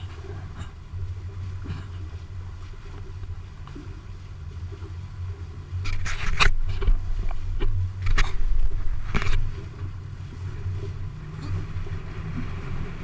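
Steady low rumble of a catamaran underway, with three short, loud bursts of noise about halfway through.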